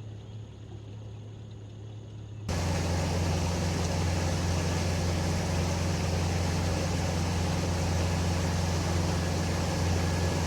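Boat engine running steadily with a low drone. About two and a half seconds in, the sound jumps suddenly much louder, the drone stronger and joined by a wide steady hiss.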